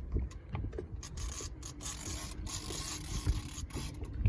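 Fishing reel being cranked, a steady mechanical whir with some scraping.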